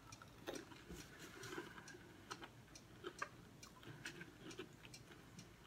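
Faint, irregular crunches and mouth clicks of someone chewing breaded popcorn chicken.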